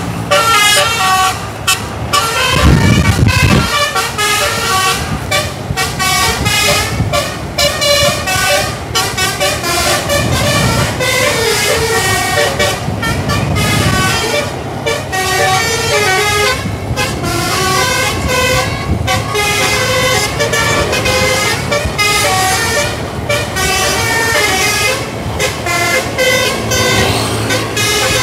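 Bus telolet horn (a Basuri multi-tone horn set) playing a long run of quick melodic tunes, its notes changing pitch and cutting in and out several times a second. The bus engine swells underneath a few times.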